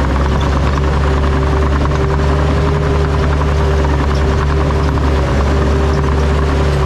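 John Deere bulldozer's diesel engine running steadily at a constant, even pitch.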